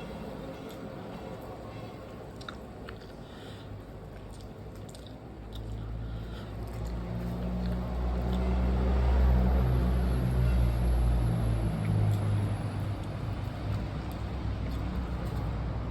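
A person chewing and eating rice and curry, with small wet mouth clicks. About five seconds in, a low rumble swells, peaks near the middle and slowly fades.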